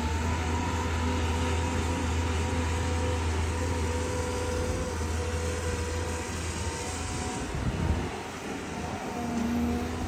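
Diesel engine of a heavy Caterpillar earthmoving machine running steadily, with a short drop in level about eight seconds in.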